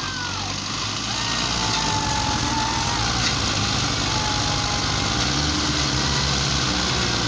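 Diesel engines of two Belarus tractors running steadily under load as they pull a trolley loaded with sugarcane through mud.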